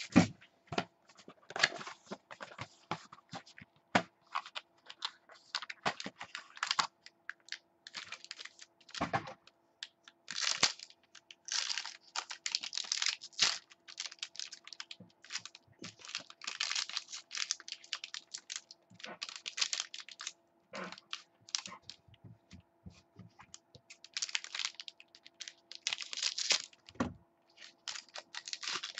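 A sealed box of trading cards being torn open and its packs unwrapped by hand: irregular rustling, crinkling and tearing of plastic wrap, foil and cardboard.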